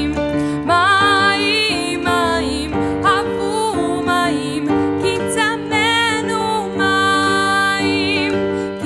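A woman singing a melody with vibrato, accompanying herself on a digital piano with long held chords.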